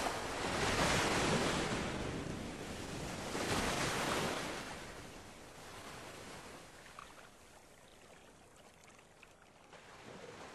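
A rushing, surf-like noise that swells twice, about three seconds apart, then fades away.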